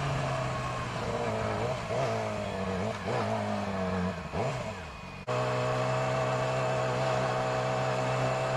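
Yamaha R6 inline-four engine heard from the rider's seat, its note slowly falling as the bike rolls off, with a few brief blips of throttle. About five seconds in the sound changes abruptly to a steady engine note at a constant speed.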